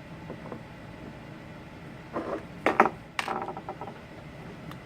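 A few short clicks and clatters of small hard parts or tools being handled on a work surface, about two to four seconds in, over a steady low background hum.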